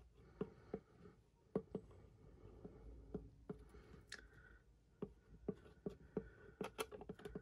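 Light taps and clicks of an empty plastic ketchup bottle handled in gloved hands, then a Sharpie permanent marker writing on the bottle's plastic, with short faint squeaks.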